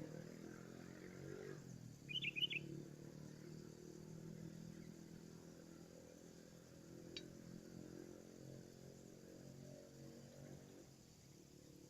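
A sooty-headed bulbul (kutilang) gives one short call, a quick cluster of several high notes, about two seconds in, over a faint steady low hum. A single faint tick comes about seven seconds in.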